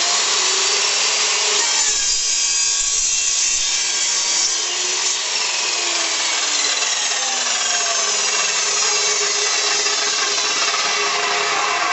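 Chop saw running at full speed and cutting through a piece of pipe: a loud, steady high-pitched whine whose pitch slides up and down as the blade works through the cut.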